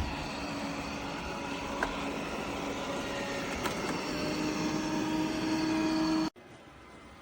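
eufy Omni C20 robot vacuum running, a steady motor hum with a whine. The sound cuts off suddenly about six seconds in.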